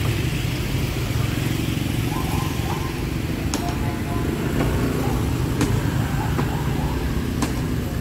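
Steady rumble of road traffic, cars and motorbikes going by, with faint voices in the background and a few sharp clicks.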